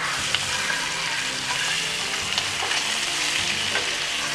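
Rolled pork belly chashu sizzling on high heat in a frying pan as its soy sauce and sugar glaze chars, with a few light clicks of metal tongs turning the pieces.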